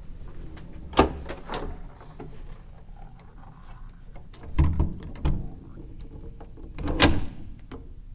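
Several sharp knocks and thumps inside a vehicle, about a second in, around five seconds and again near seven seconds, over a low steady rumble.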